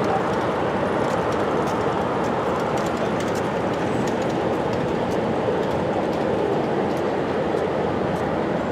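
Train rolling past, a steady rushing rumble with faint light clicks.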